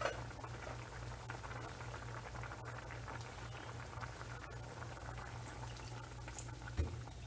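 Soup simmering and bubbling in a stainless steel pot on a gas stove: a steady fine crackle. Near the end evaporated milk is poured in, with a short dull thump.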